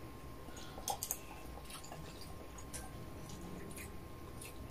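Faint eating sounds: noodles and broth being chewed and slurped, with a few light clicks scattered through.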